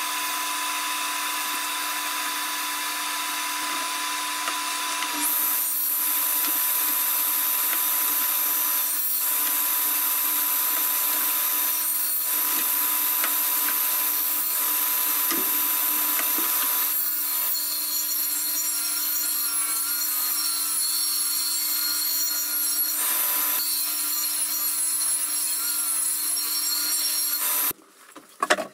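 Table saw running with a steady motor whine, its blade ripping narrow strips off a wooden board in several passes, with short dips between cuts. The sound cuts off suddenly near the end.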